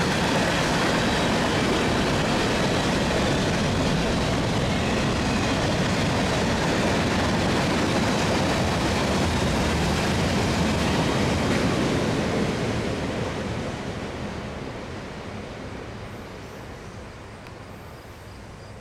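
Freight train of tank cars rolling past: a steady, loud rumble and clatter of steel wheels on rail that fades away gradually from about twelve seconds in as the train moves off.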